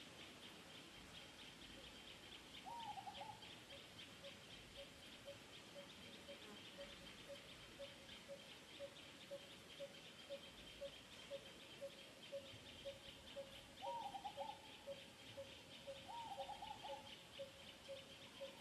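Faint outdoor background of animal sounds: a short low hoot-like note repeating about twice a second over a high, fast-pulsing buzz. A brief wavering call comes once about three seconds in and twice near the end.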